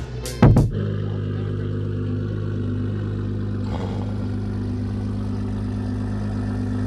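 A car engine idling steadily, with a constant low hum, after a few beats of background music stop within the first second.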